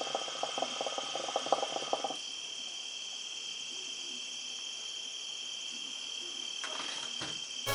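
Hookah water bubbling rapidly as smoke is drawn through the hose, stopping about two seconds in. Crickets chirp steadily behind it.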